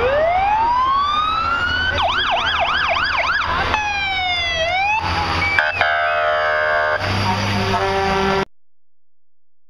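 Emergency vehicle sirens over a low engine rumble. A siren winds up in a long rising whine, switches to a fast yelp, then to repeated sweeping glides, and a horn sounds in two long blasts. Everything cuts off suddenly near the end.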